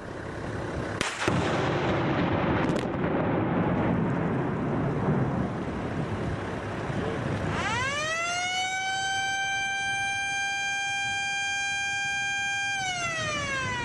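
Open-cut coal mine overburden blast: a sharp crack about a second in, followed by a long, noisy rumble. About halfway through, a warning siren winds up to one steady wail, holds for several seconds, then winds down near the end.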